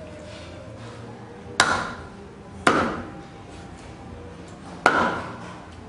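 Meat cleaver chopping through duck pieces on a thick round wooden chopping block: three sharp chops, the second about a second after the first and the third about two seconds later, each with a short ringing tail.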